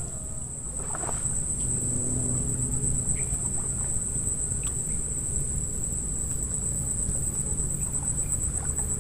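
Insects, crickets or the like, calling in one steady, unbroken high-pitched drone, over a low rumble.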